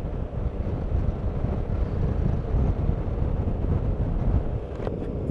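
Kymco AK 550 maxi-scooter riding along, with its engine running steadily under heavy wind rumble on the microphone.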